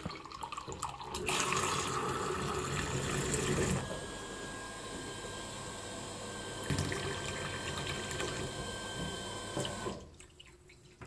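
Kitchen mixer tap running unfiltered tap water into a cut-glass goblet and the stainless steel sink, with a faint steady whistle; the flow cuts off about ten seconds in.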